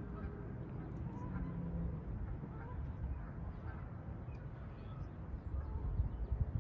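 Faint, scattered waterfowl calls, geese honking, over a low rumble of wind on the microphone that turns gustier near the end.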